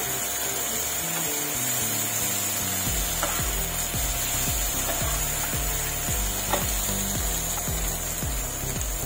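Besan-coated basa fish pieces sizzling in shallow oil in a nonstick frying pan during their second, crisping fry, with a flat spatula scraping and tapping the pan a few times. A music track with a steady beat runs underneath.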